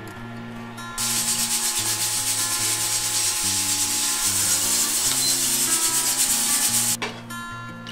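Aluminium pressure cooker venting steam past its weight valve: a loud, steady hiss with a fast flutter that starts abruptly about a second in and cuts off about a second before the end, the sign that the cooker has come up to pressure.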